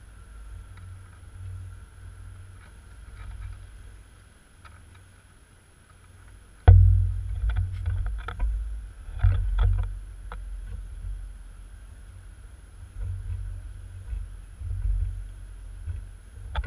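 Low rumble of wind buffeting the camera microphone. About two-thirds of the way in, a sudden loud knock, then a few seconds of scratching and clicking as a squirrel clambers against the camera.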